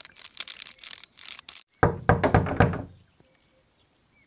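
A quick run of sharp clicks and knocks, then a louder low rumbling sound lasting about a second.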